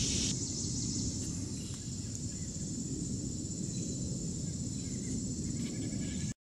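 Summer outdoor ambience: a steady high insect drone over a low rumble, cutting off suddenly near the end.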